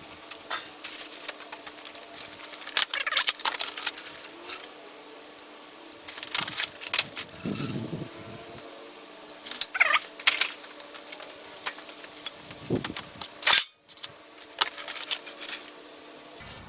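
Unpacked metal grill parts being handled and turned over: irregular clinks, knocks and rustles of packing, over a faint steady hum. The sound cuts out briefly about three-quarters of the way through.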